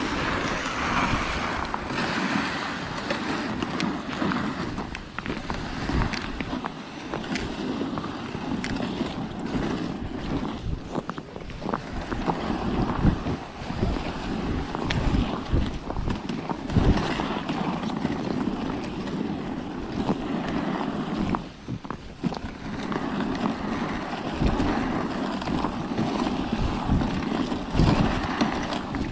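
Plastic ice-fishing sled dragged over snow-covered lake ice: a steady scraping hiss with frequent bumps and knocks.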